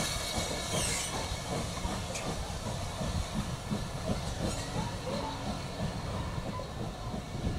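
Steam train passing, the locomotive and its carriages running by, with a hiss of steam over a low, uneven rumble.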